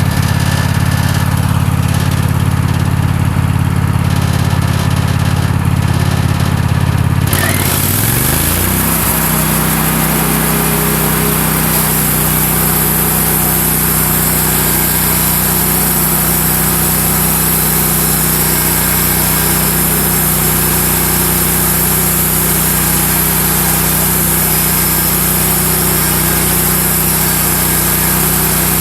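A Wood-Mizer LX150 bandsaw mill running with its engine going steadily. About seven seconds in, the engine note shifts and a steady high hiss sets in and carries on, as the band blade works through the red oak log.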